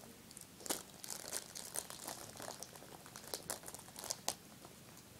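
Plastic crinkling and small clicks from hands handling Lego minifigure pieces: a run of short crackles, the sharpest about a second in and again just after four seconds, then it stops.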